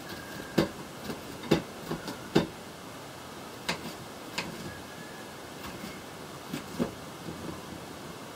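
Knife cutting vegetables on a cutting board: sharp, irregularly spaced taps, several in quick succession in the first couple of seconds, then a few more spread out, over a low steady hiss.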